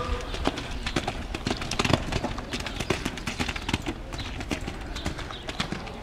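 Hooves of a cantering horse striking sand arena footing, a running series of dull thuds.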